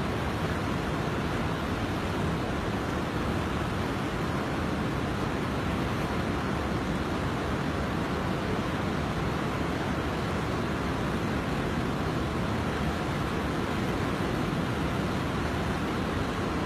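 Steady rushing of a flooded river, an even, unbroken noise of fast-moving water.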